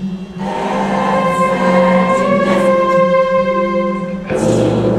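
Musical-theatre cast singing a long held chorus chord over instrumental accompaniment. A new, deeper chord with bass comes in near the end.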